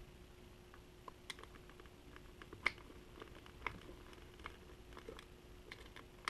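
Faint, irregular small clicks and taps of a screwdriver and metal parts being handled while the RC car's motor mount screws are tightened, with the two loudest clicks near the middle. A faint steady hum runs underneath.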